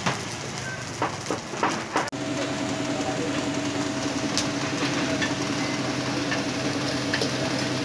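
Charcoal fire crackling and popping as a fan blows sparks off the coals. About two seconds in it breaks off abruptly, and a steady machine hum follows with a few faint ticks from the grill.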